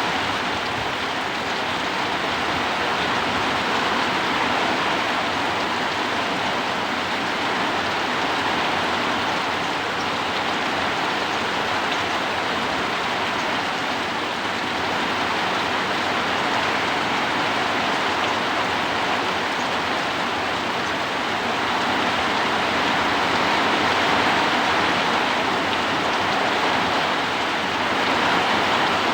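Heavy rain falling with strong wind, a dense, steady hiss that swells gently now and then.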